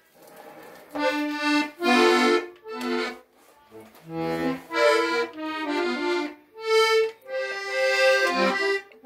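Hohner Panther 31-button diatonic button accordion being played: short chords and melody notes in brief phrases with small pauses between them, and a few low bass notes about four seconds in. It starts softly for the first second.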